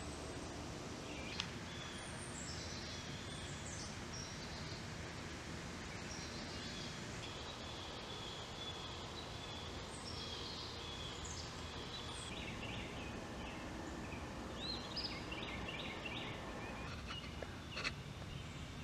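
Woodland ambience: a steady background hiss with birds chirping on and off, and a sharp click about a second in and another near the end.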